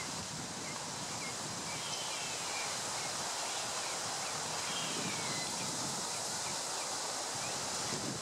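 Outdoor ambience: a steady hiss of wind in foliage, with small birds chirping faintly: short chirps repeated about twice a second, and a few falling whistled notes about two and five seconds in.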